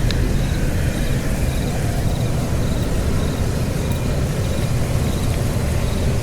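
A steady low rumbling noise, with faint insect chirps repeating about twice a second above it.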